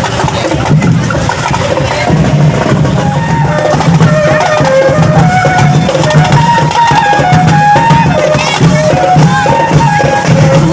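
Loud Sinulog street-dance music: drums pounding a steady beat under a melody of short, stepping notes.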